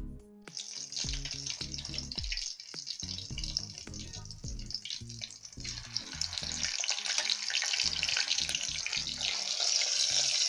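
Beef chunks deep frying in hot oil, a sizzle that starts about half a second in and grows louder from about the middle. Background music with a bass line plays underneath.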